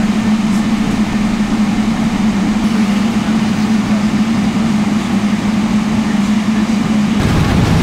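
Steady aircraft cabin hum inside a Boeing 777-300ER lining up on the runway, with a strong low drone. About seven seconds in the drone gives way to a rising, thicker rumble as the GE90 engines spool up for the takeoff roll.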